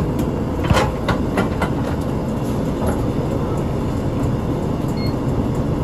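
Inside a Shimatetsu route bus: the engine and road noise make a steady low rumble. A series of irregular clicks and knocks comes in the first three seconds, the strongest about three-quarters of a second in.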